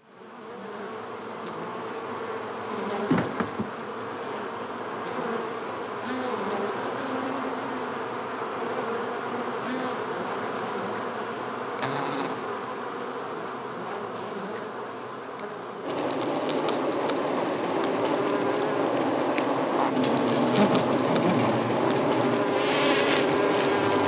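Many honeybees buzzing together in the hive, a dense steady hum of overlapping wingbeat tones that steps up louder about two-thirds of the way through. A couple of brief knocks come about three seconds in.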